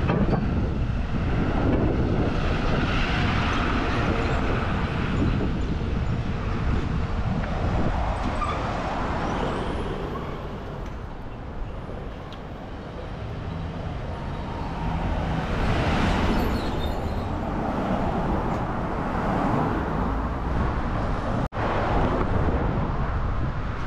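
Road traffic: cars driving along a town street. The noise swells as vehicles pass early on and again past the middle, and eases off in between.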